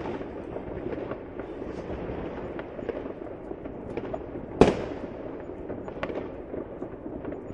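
Fireworks going off continuously, a dense crackle of many small pops and bangs, with one much louder sharp bang a little past halfway.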